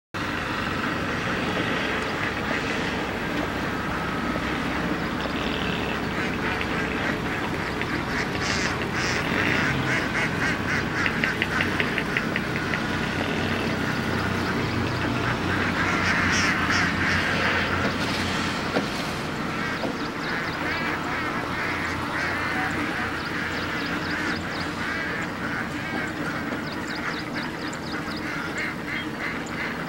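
A big flock of domestic ducks quacking and chattering together, many calls overlapping without pause, with louder spells of rapid quacking about a third of the way in and again just past halfway.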